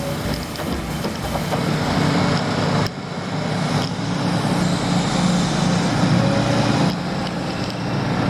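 Heavy diesel engines of an excavator and a dump truck running steadily as the excavator loads the truck, with a few sharp knocks along the way.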